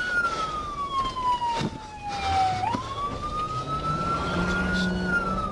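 Emergency vehicle siren in a slow wail. The pitch falls steadily for about two and a half seconds, then climbs back up, with a vehicle engine rising in pitch underneath in the second half.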